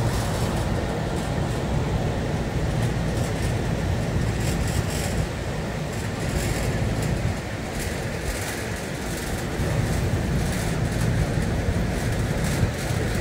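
Steady low rumble with a faint hum and hiss: outdoor dockside ambience beside a large docked cruise ship, with no single event standing out.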